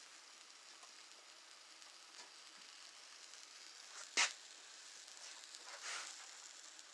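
Pancakes frying in a pan on a wood-burning stove, a faint steady sizzle. One brief sharp sound stands out about four seconds in, with a softer swell of hiss near six seconds.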